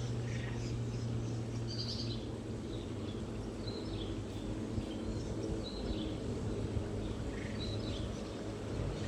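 Outdoor ambience with short, scattered bird chirps over a steady low hum.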